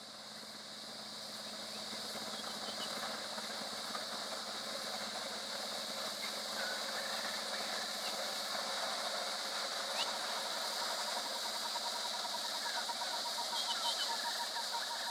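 A vehicle engine idling with a steady low hum, under a constant high-pitched buzz. Scattered short chirps come through, and a fast ticking starts about two-thirds of the way in.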